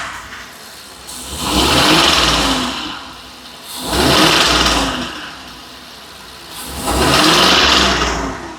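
Ford 7.3-litre V8 gasoline engine in a 2020 F53 chassis, hot, blipped three times and falling back to idle between each rev, with a misfire on cylinder 4. It carries a noise that the mechanic takes for a damaged rocker arm or pushrod.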